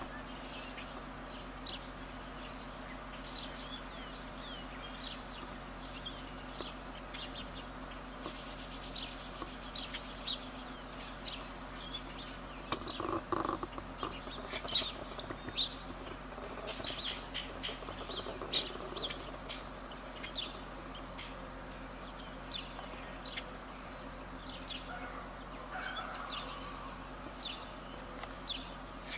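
Songbirds chirping and calling, many short high notes, with a fast high trill about eight seconds in that lasts around two seconds. A faint steady low hum runs underneath.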